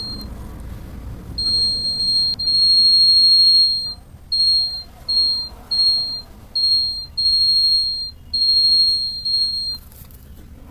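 Electronic buzzer of a homemade wireless security alarm sounding a single high, steady tone that switches on and off: two long tones with a click between them, then a run of short beeps of about half a second each.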